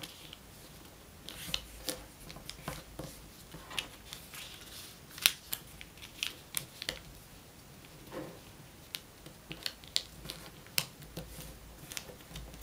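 A sheet of paper folded and creased by hand: scattered short crisp crackles and rustles as flaps are lifted, folded down and pressed flat, the sharpest about five seconds in.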